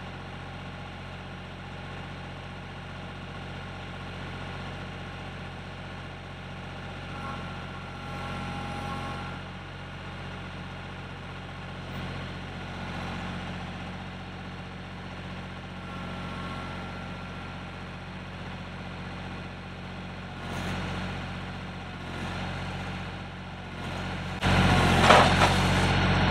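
Kioti compact tractor's diesel engine running steadily at low speed as it creeps forward under loader work. Near the end a much louder broad noise cuts in suddenly.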